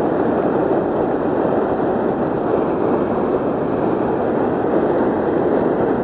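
Steady, even rush of river water pouring below a dam.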